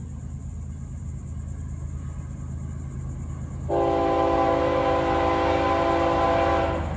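Diesel freight locomotive's air horn sounding one long chord of several tones, starting about halfway through and lasting about three seconds: a long blast of the warning for the grade crossing. Under it, the steady low rumble of the approaching diesel locomotives.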